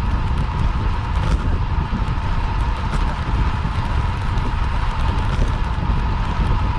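Steady wind rush on a bike-mounted camera's microphone while a road bicycle rides at speed, with a constant thin whine running through it.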